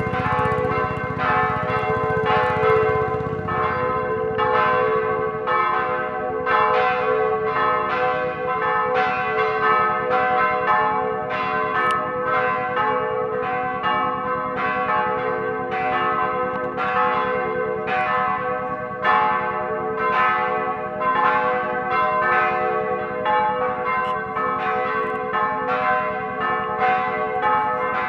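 Church bells ringing in the belfry of Högsäter church: repeated strikes at an even pace, each tone ringing on and overlapping the next, so that the bells sound continuously.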